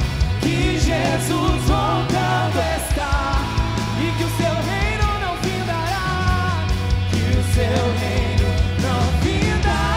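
Live Catholic worship rock band playing, with a lead voice singing over sustained bass notes.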